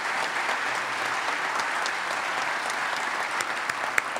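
Audience applauding steadily. The applause thins near the end to a few distinct, louder claps.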